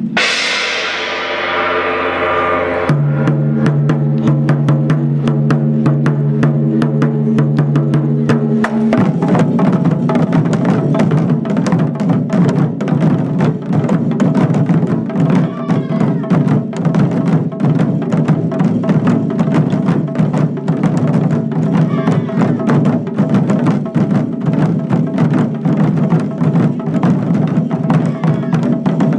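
Japanese taiko drums played in fast, continuous strokes with a steady beat. For about the first nine seconds sustained held tones sound under the drumming.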